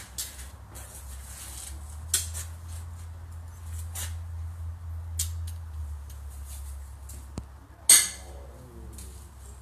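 Scattered sharp metallic clanks of pitching horseshoes, the loudest about eight seconds in, over a steady low hum.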